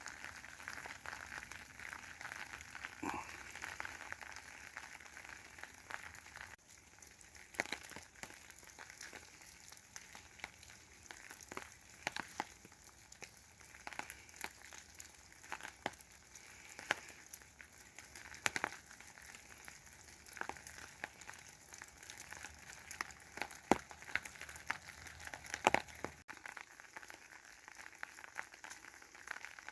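Light rain: a faint steady hiss with irregular sharp ticks of drops striking an umbrella held just above the microphone.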